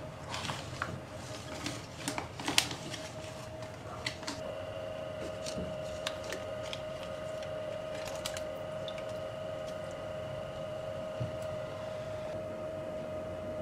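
Plastic vacuum-sealed bag crinkling and clicking as it is handled and lowered into a water bath, then the steady hum of a sous vide immersion circulator heating the water to about 52 °C, which becomes the main sound about four seconds in.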